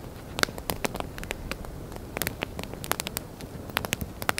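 Small campfire of sticks crackling with irregular sharp pops, over a soft rustle of cedar inner bark being pulled apart by hand.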